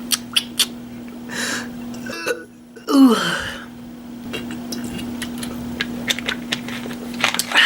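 A person eating: wet mouth clicks and smacks of chewing over a steady low hum. About two seconds in, the sound cuts out abruptly at an edit, and it resumes with a short, loud throaty vocal sound that falls in pitch.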